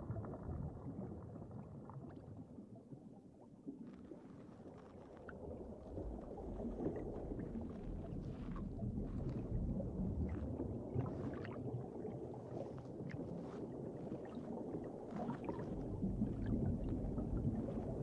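Low, rumbling underwater ambience of surging water, with scattered faint clicks.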